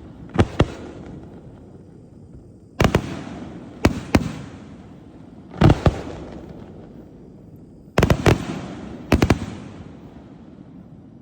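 A 50-shot cake of 3-inch and 5-inch brocade crown display shells firing. Sharp booms come singly and in quick pairs every second or two, each trailing off into a fading hiss.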